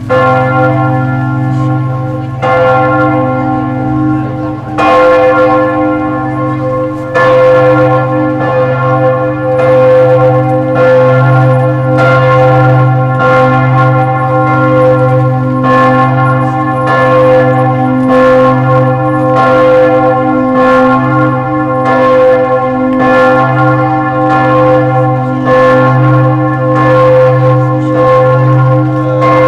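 Rouen Cathedral's bells ringing the noon peal: several large church bells striking over and over, a stroke every second or two, with a deep hum that rings on between strokes.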